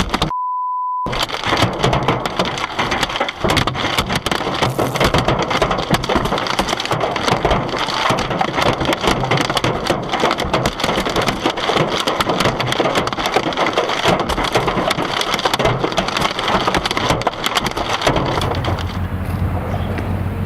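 Hailstones pelting a car in a dense, rapid clatter of impacts. A short censor bleep sounds just after the start, and near the end the hail gives way to a low steady hum.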